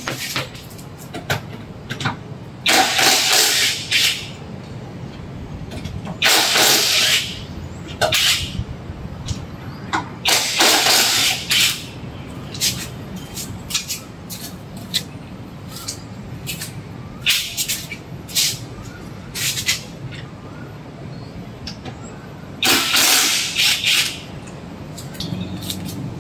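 Dagmara 700 Nm cordless impact wrench running in several bursts of one to one and a half seconds, hammering lug nuts loose, with shorter knocks and clicks in between.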